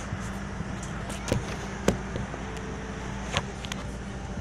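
Steady hum of a parked airliner's cabin with its engines shut down, punctuated by three short sharp clicks, about a second apart.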